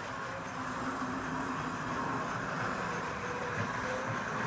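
1951 Gilbert American Flyer Northern 332AC, an S gauge 4-8-4 model steam locomotive with an AC motor, running on the track with its train: a steady whir of motor and wheels rolling on the rails.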